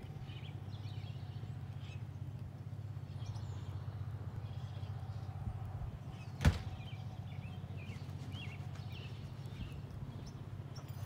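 Birds chirping over a steady low rumble, with a single sharp knock about six and a half seconds in.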